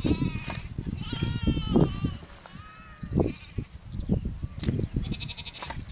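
Sheep bleating several times, with calls overlapping and some quavering, over a low rumbling noise.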